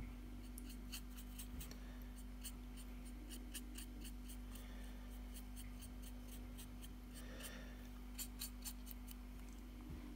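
Faint, irregular ticks and light scratching of a thin paintbrush dabbing and streaking watercolour down the side of a model railway wagon, over a steady low hum.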